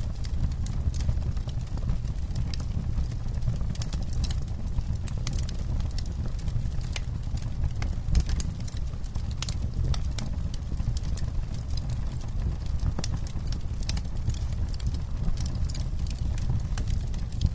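Wood campfire crackling: frequent sharp, irregular pops and snaps over a steady low rumble, with one louder pop about eight seconds in.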